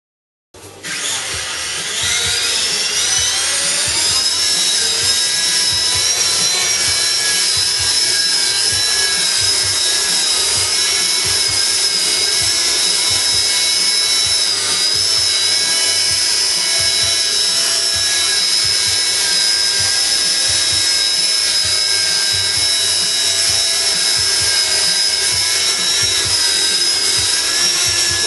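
Walkera CB180Q electric RC helicopter's motor and rotors whining. The pitch rises over the first few seconds, then holds a steady high whine as it flies.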